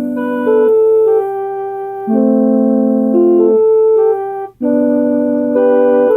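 A keyboard playing a slow run of held chords whose notes stay at a steady level without fading, changing every second or so, with a brief break about four and a half seconds in.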